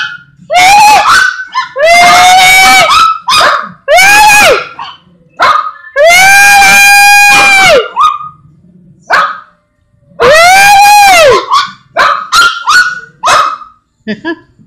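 Small dog giving a string of loud, drawn-out howling barks, each rising then falling in pitch, the longest about two seconds, with short yips between.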